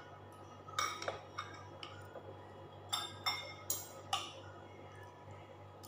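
Metal spoon and fork clinking against ceramic bowls and mussel shells: a few sharp clinks about a second in, then another cluster of four around three to four seconds in.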